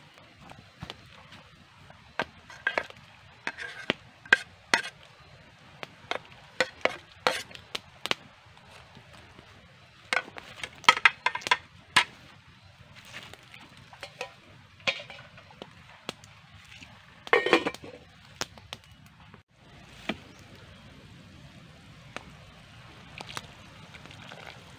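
Irregular clinks and knocks of a metal cooking pot and utensils as ingredients are handled and dropped into the pot, singly and in quick clusters, over a low steady outdoor hiss.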